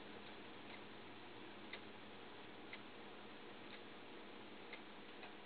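Faint, regular ticking about once a second, like a clock, over a steady low hiss.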